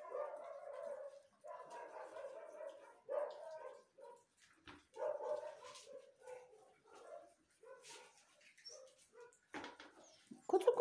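Young puppies vocalizing in short outbursts, several spread a second or two apart, as they crowd around their food bowls.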